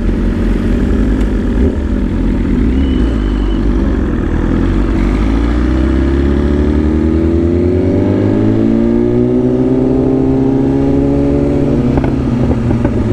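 Sport motorcycle engine under way, with wind rush. Through the second half the revs climb steadily as the bike accelerates, then drop back briefly near the end.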